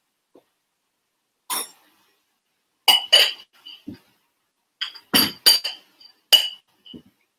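A drinking glass packed with rice knocked against a ceramic bowl about six times, each a sharp clink with a brief ring. The glass is being tapped to free the moulded rice, which has not yet come loose.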